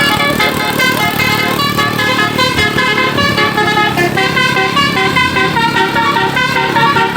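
Bus 'telolet' basuri horn, a set of electric trumpet horns run by a melody module, playing a tune of clear horn notes that change pitch every fraction of a second without a break.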